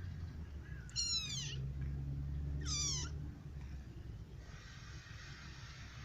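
A young kitten mewing twice, two short, high-pitched mews that fall in pitch, over a low steady rumble.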